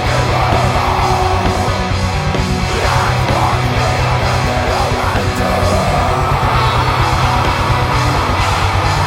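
Heavy metal band playing: distorted guitars and bass over fast, even drumming, with a harsh shouted vocal.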